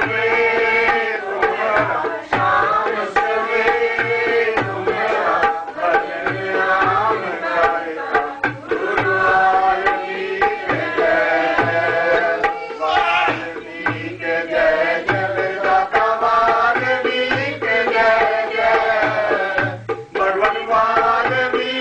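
Devotional music: sung voices over a tabla keeping a steady beat.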